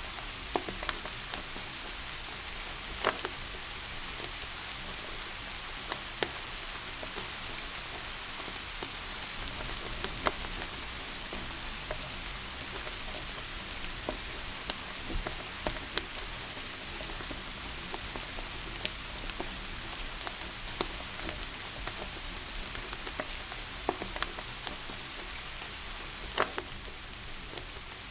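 Steady rain hiss, with a wood fire crackling in scattered, irregular sharp pops.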